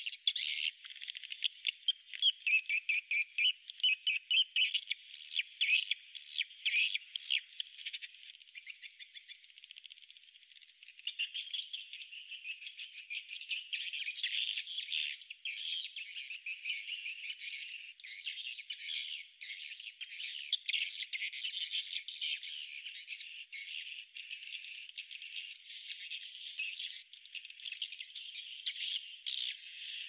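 Swiftlets twittering: rapid trains of high chirps, thinning out for a few seconds about eight seconds in, then dense again. This is a swiftlet roosting call (suara inap), the kind of call played to draw swiftlets to roost in a swiftlet house.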